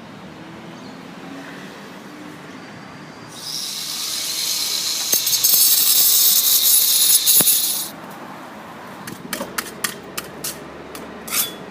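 Building work on a wall: a loud, steady hiss from about three seconds in, which cuts off after about four and a half seconds, followed by a run of short scraping strokes.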